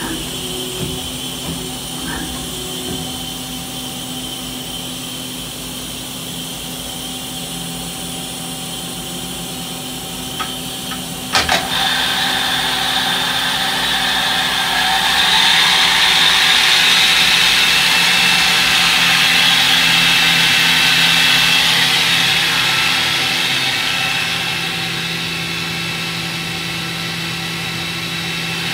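Mazak Quick Turn Nexus CNC turning center running under power: a steady hum, then a sharp clunk about eleven seconds in. After the clunk comes a rising whine as the turret's live-tool spindle spins up toward 4000 rpm, holding a loud steady high whine before easing a little near the end.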